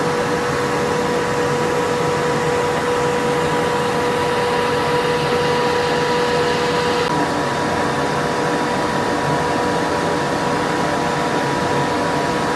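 A machine running steadily: a loud rushing noise with a constant hum. About halfway through, the lower note of the hum drops out.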